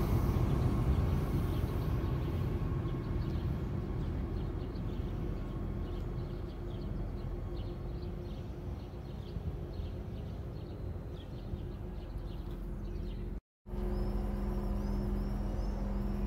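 Stadler GTW 646/946 diesel multiple unit pulling away along the track, its engine and running noise slowly fading, with birds chirping. After a short gap, another GTW 646/946 idles at the platform with a steady low diesel hum.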